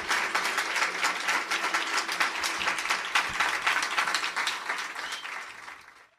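Crowd applauding, fading out to silence near the end.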